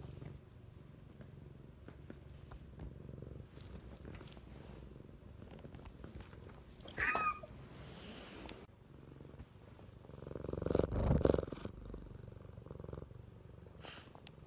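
Domestic cat purring steadily close to the microphone, with a short wavering high-pitched call about halfway through and a louder low rumble a few seconds later.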